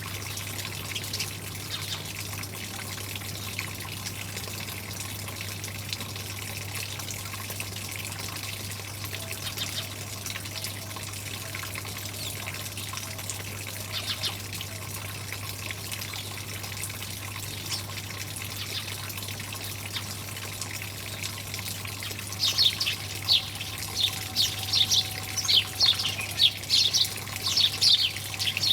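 Running water with songbirds chirping over it: a few scattered chirps at first, then a dense run of loud, rapid chirping in the last quarter.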